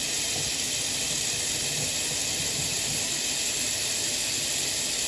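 Kitchen faucet running a steady stream of water into a stainless steel sink, an even hiss that does not change.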